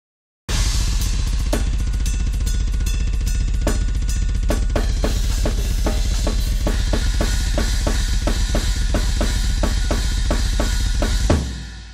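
Metal drumming on a full drum kit with Meinl cymbals: a fast, continuous bass drum under regular snare and cymbal hits. It starts about half a second in and stops abruptly near the end, leaving a cymbal ringing out briefly.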